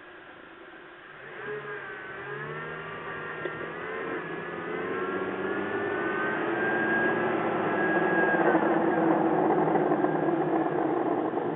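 Second-generation Toyota Tacoma pulling away and speeding up: a pitched engine and drivetrain whine rising and wavering in pitch while road noise builds steadily louder. One sharp click about three and a half seconds in.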